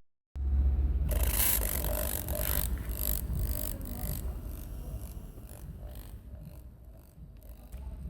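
Washing-machine drain pump's small mains motor switched on at 220 V and running dry: a steady low hum with a scraping rattle that is loudest over the first few seconds and then fades.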